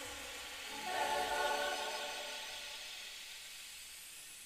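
Recorded music played through Jean Marie Reynaud Grand Opera loudspeakers driven by a Luxman L2 amplifier. A sung or choral chord swells about a second in, then fades away, leaving a faint hiss near the end.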